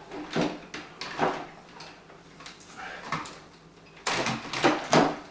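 Irregular knocks, clicks and scraping from handling a PC case and its cables. The loudest stretch of scraping and knocking comes near the end.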